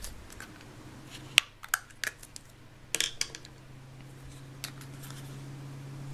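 Plastic Play-Doh tubs and lids being handled and pried open: a few sharp plastic clicks and taps, the loudest about a second and a half in, over a low steady hum.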